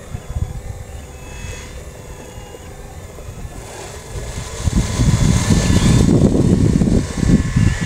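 Radio-controlled model excavator's small electric motors whining with steady tones as it swings and lowers its arm and digs the bucket into the bank. From about five seconds in, a louder irregular low rumble comes in on top.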